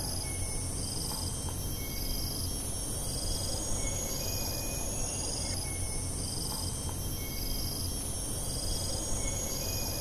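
Tropical rainforest insect chorus: a high buzzing whine that swells and falls about every two seconds, with a short high note repeating about once a second over a low steady hiss.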